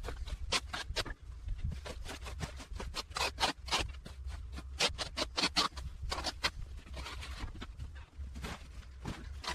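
Hand-clearing of overgrowth: irregular scraping strokes, several a second, over a low steady rumble.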